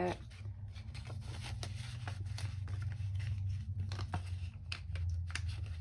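Paper banknotes rustling and being slid into a thin plastic cash envelope, the plastic crinkling in quick irregular ticks, over a steady low hum.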